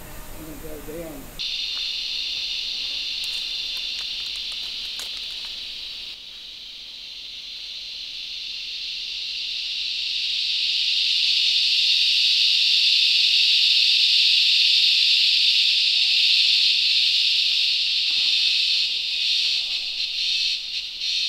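A chorus of cicadas, a loud high hiss that cuts in abruptly about a second in, dips, then swells to its loudest and fades again near the end.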